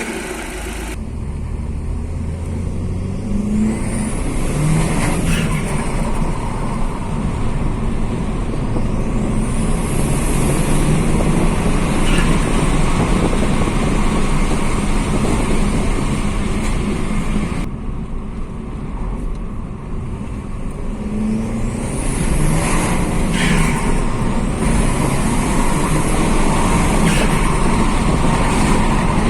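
Audi S3 8L's turbocharged 1.8-litre four-cylinder engine pulling under acceleration, with the turbo's whistle rising high and holding as it spools up, several times over.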